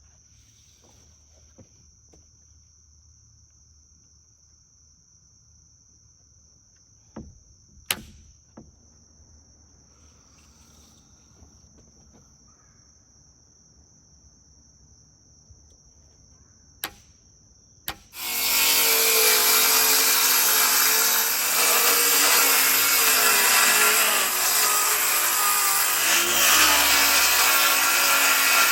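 Insects, crickets by their sound, chirr steadily in the background while a few light knocks and clicks sound. About 18 seconds in, a power saw starts abruptly and cuts into lumber, loud and continuous, drowning out the insects.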